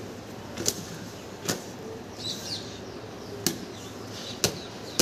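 Pitbull puppy playing tug-of-war with a rubber tube on concrete: several sharp clicks and knocks at irregular intervals, with faint bird chirps in the middle.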